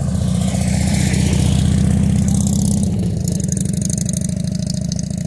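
Touring motorcycle's engine passing close by at low speed, a deep pulsing engine note that grows to its loudest about two seconds in and then slowly fades as it moves away.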